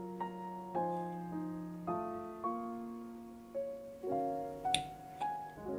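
Gentle solo piano music, with new notes struck about once a second. About three-quarters of the way through there is a single sharp click.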